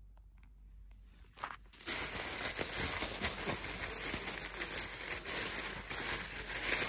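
A thin plastic carrier bag handled and opened by hand, crinkling and rustling. It starts about two seconds in, after a few faint clicks, and keeps up steadily after that.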